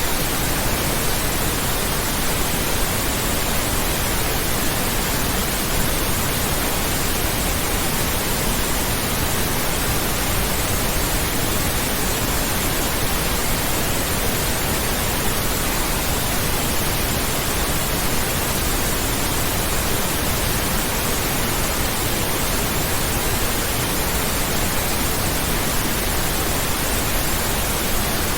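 Steady pink noise: an even, unchanging hiss spread across the whole range, with no breaks or changes in level.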